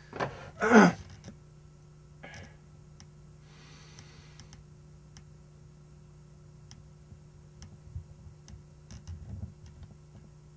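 A brief voice sound sliding down in pitch about a second in, then faint scattered clicks over a steady low hum of studio room tone.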